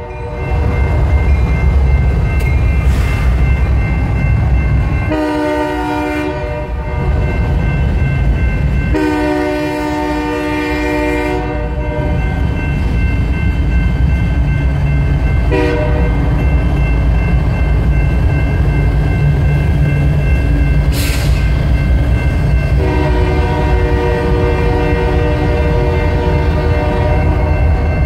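Diesel freight locomotives passing close by, their engines running with a steady low rumble, while an air horn sounding a chord gives long, long, short, long blasts. This is the standard signal for a grade crossing.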